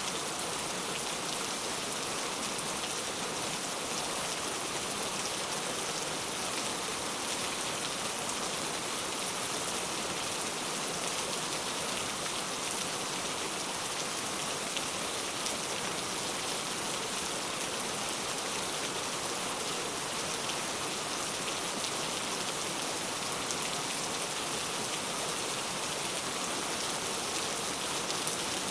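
Steady rain falling, an even hiss heavy in the high end with fine patter of drops, no thunder.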